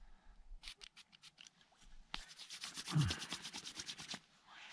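A few short hisses from a pump-action spray bottle, then hands rubbing briskly back and forth together for about two seconds, spreading the spray over the skin.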